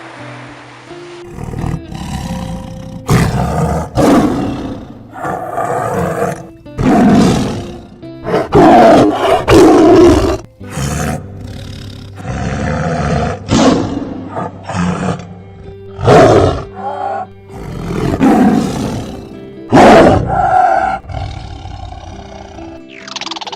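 A large animal roaring again and again, about a dozen loud roars each around a second long, over background music.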